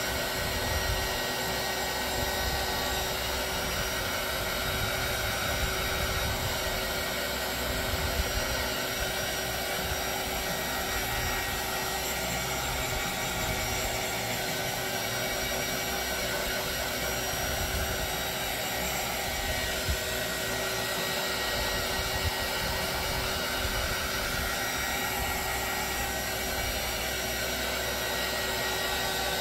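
Handheld hair dryer running steadily at one speed, blowing across wet resin in a round mould.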